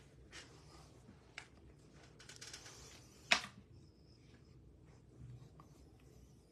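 Faint scattered rustles and small clicks of things being handled at a table, with one sharp click about three seconds in.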